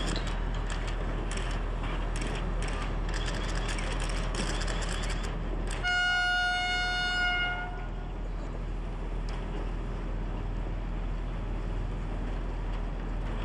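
A horn sounds one steady, high note for about two seconds midway through, over a steady background noise with scattered sharp clicks before it.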